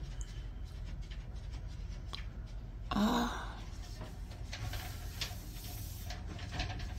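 Sliding glass doors of a Dreamline corner shower moved by hand along their track, with soft rolling and light clicks of the frame. A short breathy voice sound comes about three seconds in, over a steady low hum.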